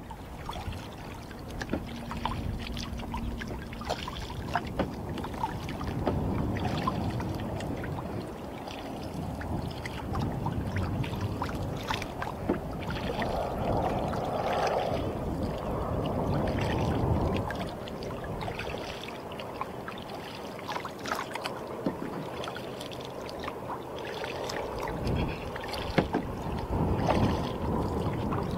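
Water sloshing and splashing around a kayak as it is paddled through light chop, swelling and easing every few seconds. Small drips and clicks are scattered throughout.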